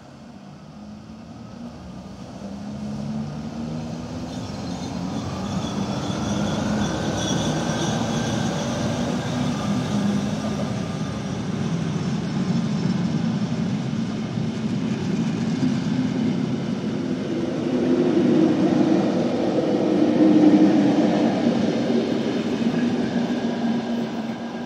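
SBB Ae 4/7 electric locomotive pulling a train of old passenger coaches away, with a humming drive and a faint rising whine as it gathers speed. The rolling of the coaches' wheels on the rails grows louder as they pass, is loudest a few seconds before the end and eases off as the last coach goes by.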